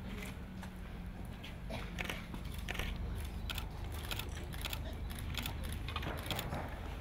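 Camera shutters clicking irregularly, several clicks a second, as the medallists are photographed.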